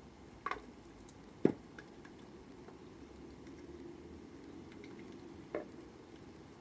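Gunge being poured over a man's head from a bottle, splatting and dripping into an inflatable paddling pool below. A few short sharp splats stand out, the loudest about a second and a half in.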